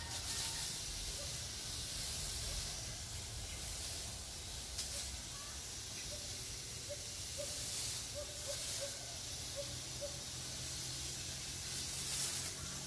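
High-pressure pesticide spray wand hissing as it throws a fine mist into the tree foliage, fed through a hose by an electric-motor sprayer pump. The hiss swells and eases a few times as the nozzle moves, over a steady low hum.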